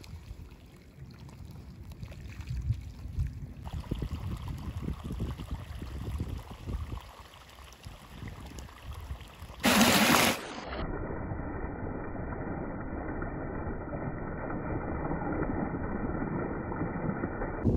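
Running water gushing and splashing over a hand: a steady, muffled rush in the second half, after a short loud burst of noise just past the middle. Before that, faint outdoor wind noise.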